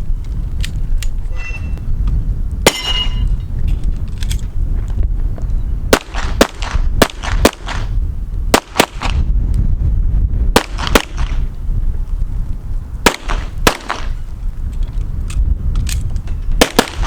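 Pistol shots fired in quick pairs and strings, with irregular gaps between the strings as a shooter works through an IDPA stage. Each shot is a sharp crack with a short echo.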